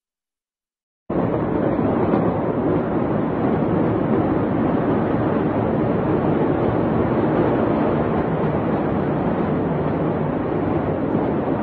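Steady loud rushing noise, like wind buffeting a phone's microphone, starting abruptly about a second in and running on evenly with no distinct bang.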